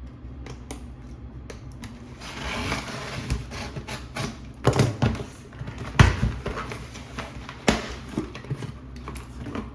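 Cardboard shipping package being handled and opened by hand: rustling and scraping of cardboard and packing, with several sharp knocks and clicks, the loudest about six seconds in.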